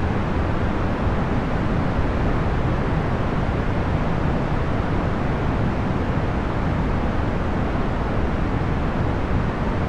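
Procedurally generated box fan noise: a steady, even rush of air, heaviest in the low range and without any motor hum or rattle.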